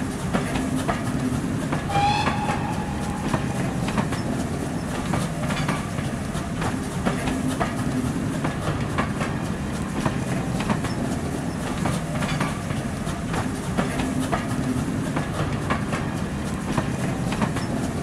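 Railway carriages running past: a steady rumble with the clickety-clack of wheels over rail joints, and a short high tone about two seconds in.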